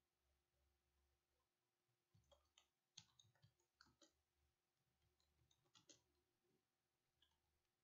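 Faint computer keyboard typing: a few quick runs of key clicks, the first about two seconds in, a second run around five to six seconds, and a last stray click near the end.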